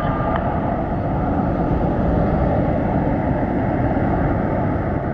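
Two rear-mounted Pratt & Whitney JT8D low-bypass turbofans of a McDonnell Douglas MD-81 at takeoff power as the jet climbs away, heard from behind. The engine noise is a loud, steady deep rumble.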